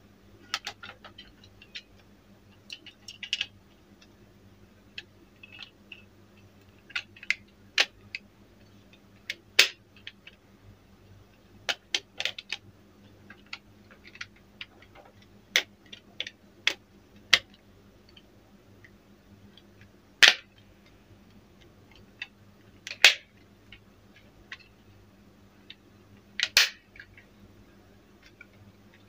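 Plastic TV remote case being snapped shut: the front and back halves are squeezed together by hand, giving an irregular scatter of sharp plastic clicks, with a few louder snaps as the clips catch.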